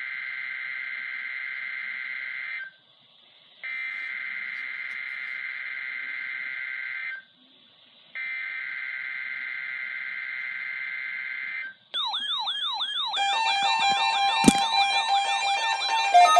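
Emergency Alert System SAME header: three harsh, buzzy digital data bursts, each about three and a half seconds long with a one-second gap between them. At about twelve seconds a fast, warbling siren-like electronic alarm tone begins. Steady musical tones join it a second later, and there is a sharp click near the end.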